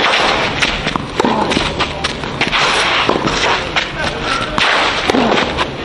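Tennis rally on a clay court: a string of sharp hits as rackets strike the ball and the ball bounces on the clay.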